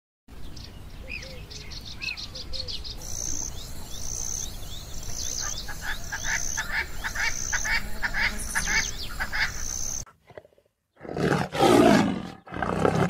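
Birds chirping, with a high note repeating about every two-thirds of a second, over a low steady outdoor rumble; then, about eleven seconds in, a lion roars twice in two loud bursts.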